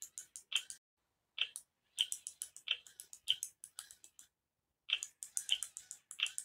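Baby Alive Snackin Sara doll's motorized mouth clicking as it chews a play breadstick, in quick clusters of sharp clicks about once or twice a second with short pauses.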